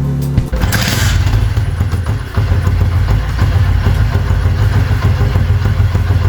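Suzuki DR650's single-cylinder engine running at idle, a steady, rapid low pulsing from the exhaust.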